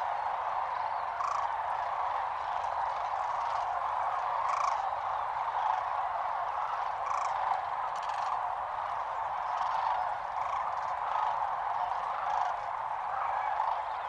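A large flock of sandhill cranes calling all at once: a steady, dense chorus of many overlapping calls.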